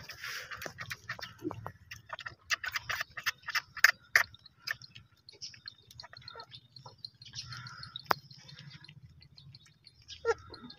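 Newborn goat kid suckling at its mother's teat: rapid, irregular wet sucking and smacking clicks, thickest between about two and four and a half seconds in.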